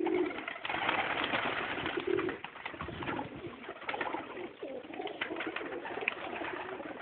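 Domestic pigeons cooing, with a stretch of rustling noise about a second in and scattered small clicks.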